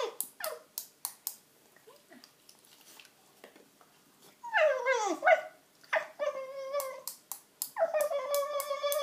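A Cockermops dog whining: a brief whine at the start, a whine sliding down in pitch about halfway, then two long, steady, high whines near the end. Sharp clicks are scattered through it.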